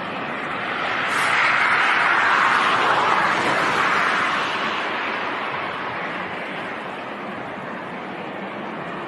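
Jet aircraft noise, a rushing roar that swells to a peak a second or two in, then slowly fades away.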